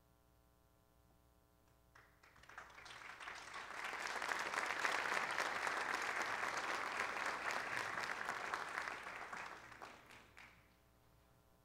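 Concert audience applauding a pianist, over the last faint ring of a piano chord. The clapping starts about two seconds in, swells, and dies away near the end.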